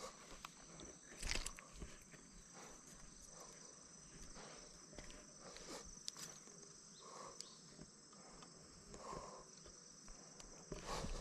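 Steady high-pitched chirring of crickets or other insects, with scattered soft clicks and rustles of handling; one louder rustle about a second in.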